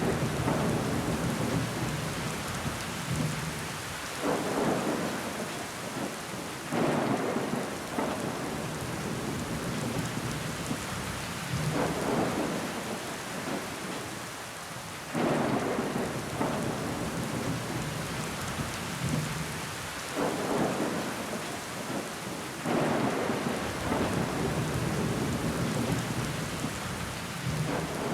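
Steady rain falling on window glass, with water running down it. Every three to five seconds the rain swells into a louder rushing wash, then eases back.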